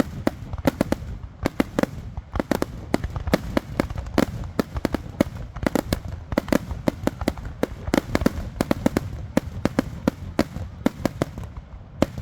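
Fireworks going off in a rapid barrage, several sharp bangs a second over a continuous low rumble. The bangs stop just before the end, followed by one last bang.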